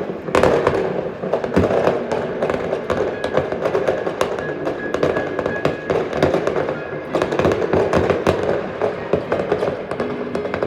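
Fireworks going off, a dense run of rapid cracks and pops with no let-up.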